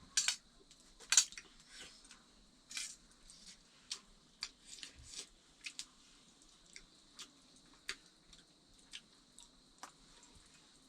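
Irregular light clicks and taps of eating: utensils knocking on dishes during a meal, two sharper clinks near the start, then softer scattered ticks.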